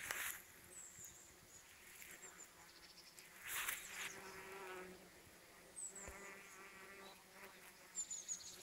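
Bees buzzing in flight close to the microphone, one steady pitched buzz about four seconds in and another about six seconds in, with a few brief rustles and short high chirps around them.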